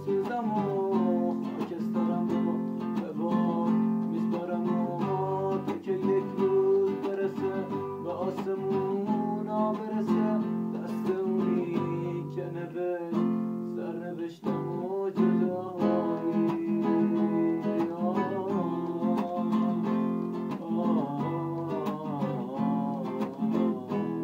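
A man singing a melodic song, accompanying himself by strumming chords on an acoustic guitar.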